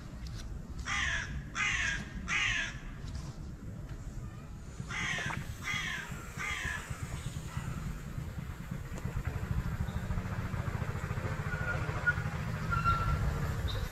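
A bird calling in two runs of three loud calls in quick succession, the first about a second in and the second about five seconds in, over a steady low rumble.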